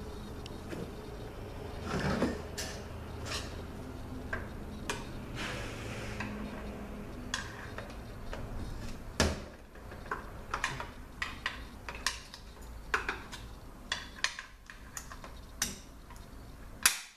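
Irregular small metallic clicks, ticks and scrapes of a pick tool prying a snap ring out of the aluminium case of a Toyota A340 automatic transmission, the ring catching as it comes. A louder clink about nine seconds in and another just before the end.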